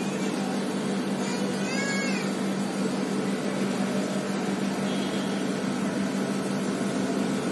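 Steady outdoor background noise with a constant low hum, and one short pitched call that rises then falls, about a second and a half in.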